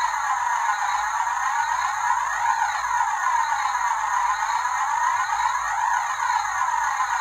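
Electronic background sound: a steady whooshing noise with a sweeping phaser effect that swells about every three and a half seconds.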